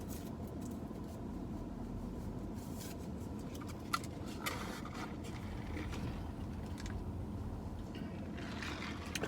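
Steady low hum inside a parked car with the engine running, with a couple of faint small clicks and rustles about four seconds in.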